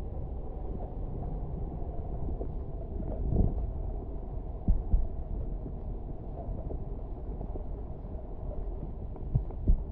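Muffled underwater water noise picked up by a camera submerged in its waterproof housing: a steady low rumble with a faint steady hum and a few dull knocks.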